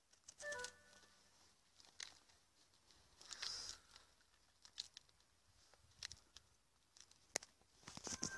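Faint crackles, snaps and tearing of pomegranate rind and white pith as the scored fruit is pried open with a small blade and fingers, in scattered bursts with a louder crackly stretch about midway.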